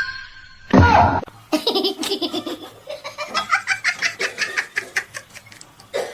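A brief loud vocal call about a second in, then a person laughing hard in a long run of quick, rapid laughs.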